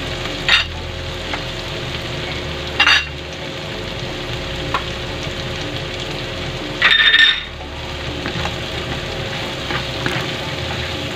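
Chicken liver, onion and garlic sizzling steadily in butter and oil in a nonstick frying pan, stirred with a spatula. The spatula scrapes the pan a few times: briefly near the start and about three seconds in, then longer around seven seconds in.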